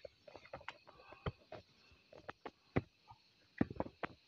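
Digging red earth with a hand tool: irregular knocks and scrapes as the tool strikes and loosens the soil, a few sharper strikes near the end.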